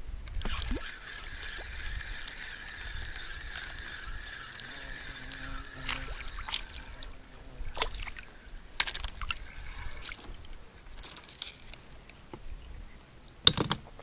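Water sloshing and splashing beside a packraft as a small roach is brought in on an ultralight spinning rod. A steady high whine runs through the first half, with scattered clicks and knocks and one sharp knock near the end.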